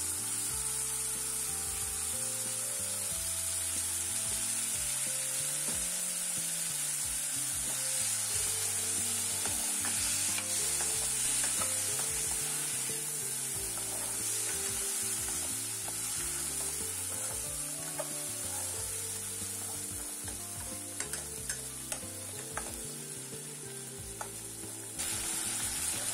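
Chicken pieces and onion-tomato masala sizzling in oil in a nonstick wok while a spatula stirs and scrapes through them. A few sharp clicks of the spatula against the pan come near the end.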